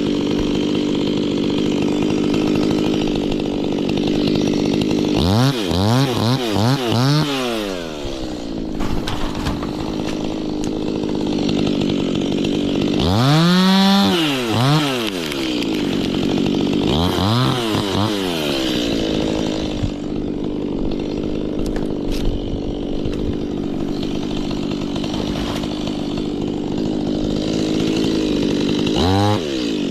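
Stihl two-stroke chainsaw running at high revs, cutting, with the throttle let off and opened up again about four times, the engine note dropping and climbing back each time.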